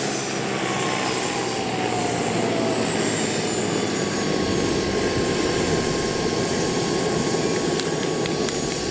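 The Jet Cat PHT 3 model turbine of a scale EC 145 model helicopter whines, over the rush of the turning rotors. The whine falls in pitch through the first few seconds as the turbine winds down, then holds one steady tone.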